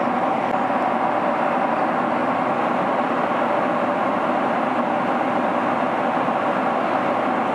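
Steady cabin noise of a Boeing 767-300ER in flight, heard inside the cabin: an even roar of the engines and the air rushing past the fuselage, with a faint steady hum.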